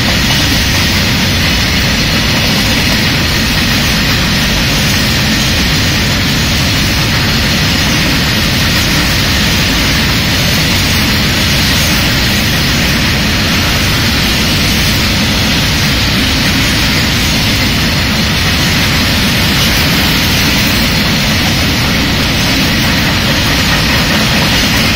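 Freight wagons (BOXN open wagons and BRNA flat wagons) rolling past on the track: a loud, steady rush of wheels on rails.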